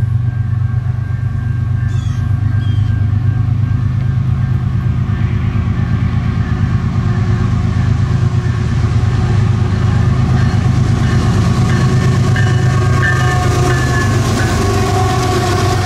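Two Canadian National diesel-electric locomotives approach and pass under power. A steady, deep engine drone grows louder, and wheel and rail noise builds as the lead units go by near the end.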